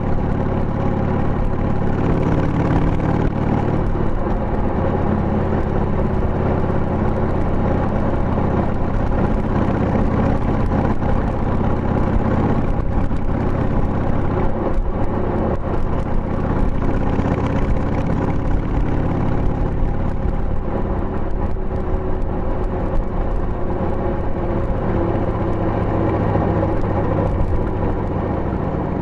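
Harley-Davidson Sportster 883's air-cooled Evolution V-twin running under way through tapered mufflers with the baffles fitted, the engine note rising and falling a little with the throttle.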